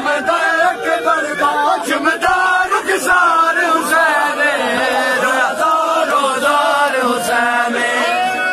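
A crowd of men chanting a Punjabi noha, a mourning lament, together, with sharp hand slaps of chest-beating (matam) keeping a beat about once a second.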